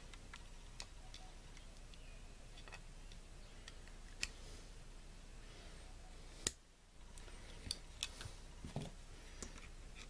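A few faint, scattered metal clicks and ticks as a steel snap ring is worked over the shaft of a T-90 transmission main gear to seat above the rear bearing. The sharpest click comes about six and a half seconds in.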